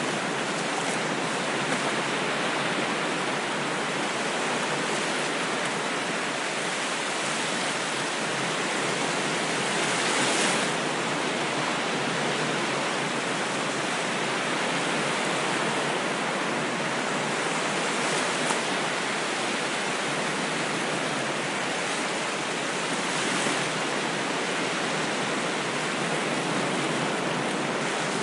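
A steady wash of ocean waves and surf, swelling slightly a few times.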